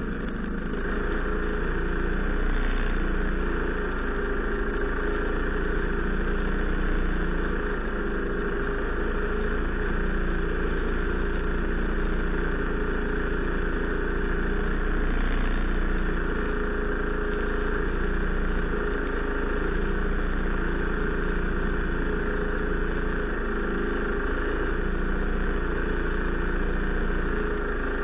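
Ski-Doo Tundra II snowmobile's two-stroke engine idling steadily.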